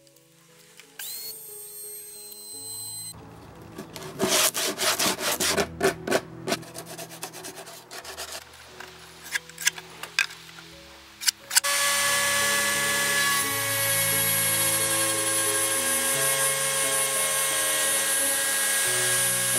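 Quick, uneven rubbing strokes of hand-sanding on pine, then about halfway through a Bosch palm router starts and runs steadily with a high whine as it cuts the pine top along a clamped guide. Background music plays throughout.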